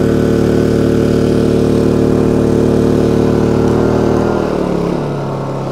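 Honda EU2200i inverter generator's single-cylinder engine, running on propane, holding a steady high speed under a load of about 2 kW from two electric heaters. About four seconds in, its pitch and level drop as it slows to a lower speed when a heater is turned down and the load comes off.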